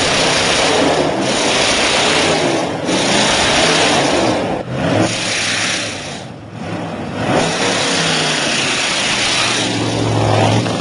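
A car engine revving again and again, with five long bursts of loud hissing air released between the revs: the 'sneeze' of released boost.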